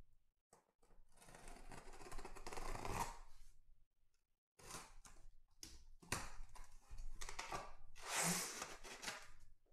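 A utility knife slicing through the packing tape along the seam of a cardboard shipping case, one long cut of about two and a half seconds. After a short pause, cardboard flaps rustle and scrape as the case is pulled open, loudest near the end.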